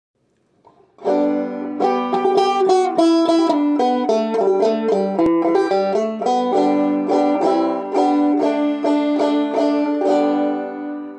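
Banjo with a traditional maple-and-ebony bridge, a rapid run of plucked notes in a steady rhythm starting about a second in: an instrumental lead-in to a folk song.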